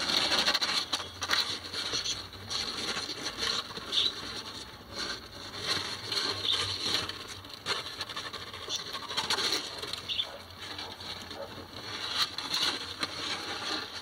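Kittens' claws scratching and scrabbling on cardboard as they clamber against the sides and rim of the box: a dense, irregular patter of small scrapes and taps.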